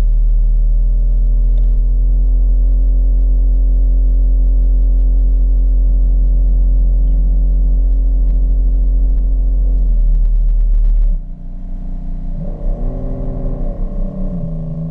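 Home-built ROV's electric thruster motors running underwater: a loud low hum with several steady motor tones that step up and down in pitch as the motors change speed. About eleven seconds in the low hum drops away and the motor tones rise and fall in pitch.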